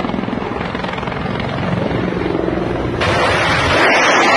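Low-flying military helicopter's rotor chopping steadily; about three seconds in it cuts to the louder rotor noise of two Mi-24 gunships passing low overhead.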